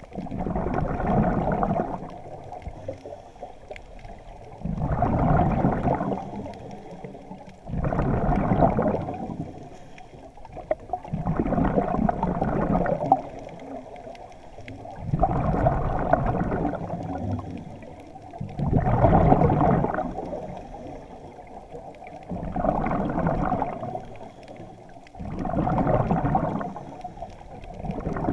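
Scuba diver breathing through a regulator underwater: eight bursts of exhaled bubbles, each a second or two long, about every three and a half seconds, with quieter gaps between.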